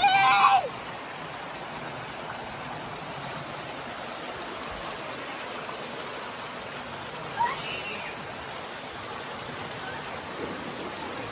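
Water rushing steadily down a natural rock waterslide. A child gives a loud, high-pitched yell right at the start as he slides into the freezing cold water, and a shorter rising yell about seven and a half seconds in.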